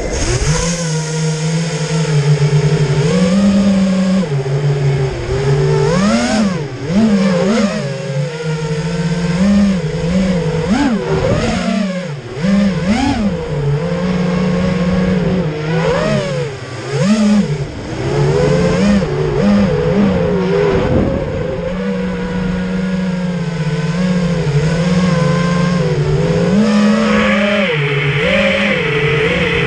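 Quadcopter drone's propellers buzzing steadily, the pitch sliding and stepping up and down as the motors speed up and slow down in flight. A hiss joins near the end.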